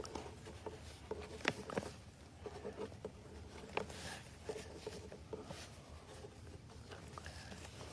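Faint scratching of pens on paper as several players write, with scattered light taps and clicks in a quiet room.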